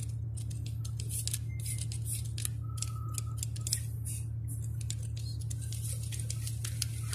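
Utility knife blade scraping at the printed month box on the label of a Hammar H20 hydrostatic release unit, in many short irregular scratches, marking the month it was installed. A steady low hum runs underneath.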